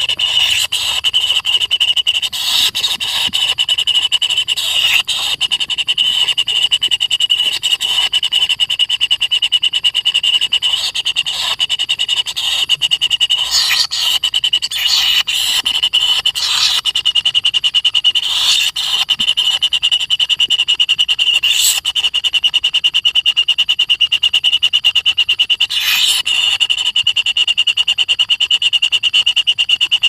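White-throated kingfisher nestlings begging in the nest burrow: a steady, high, rapidly pulsed buzz runs throughout, with louder squeals breaking in every few seconds.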